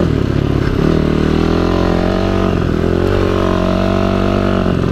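KTM XC-F 250 dirt bike's single-cylinder four-stroke engine running at low throttle while being ridden, its pitch dipping briefly about a second in and then picking back up and holding steady.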